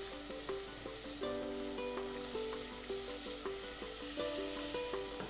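Chopped onions frying in hot oil with a steady sizzle, while a slotted spoon stirs tomatoes in a pot of hot water, with small scrapes and clicks. A light background melody of short clear notes plays over it.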